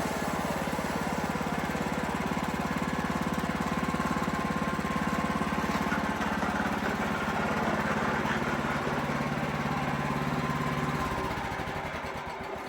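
Wood-Mizer LX55 band sawmill running with its engine steady while the blade cuts through a pine log. About eleven seconds in the engine note drops out and the sound winds down as the cut finishes.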